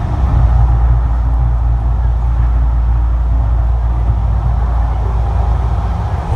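Deep, steady rumble from the Mirage volcano show, with a crowd talking underneath.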